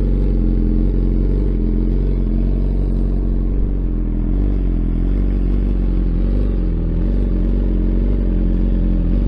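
2021 BMW S1000RR inline-four idling steadily through a titanium Akrapovic full-system exhaust with the short GP muffler, its ECU reflashed with a Brentune tune for the idle. The idle holds even, with no revs.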